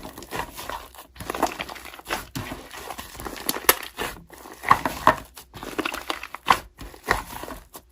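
Slime being squished and pressed by hand, giving irregular crackling and clicking pops.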